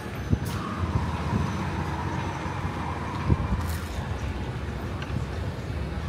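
Street traffic: a motor vehicle's engine running close by as a low steady rumble, with a faint whine over the first few seconds and a couple of short knocks.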